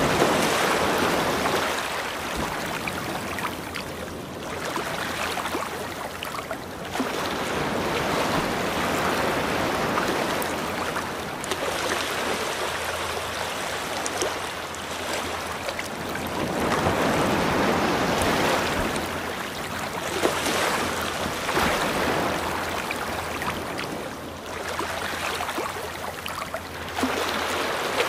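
Ocean surf: a continuous rushing of waves that swells and fades every few seconds.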